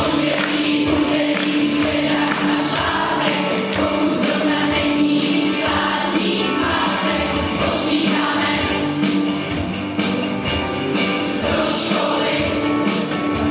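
Music with a choir singing, in long held notes.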